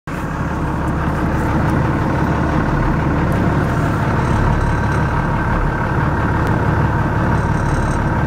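Boat engine idling steadily with a constant low hum.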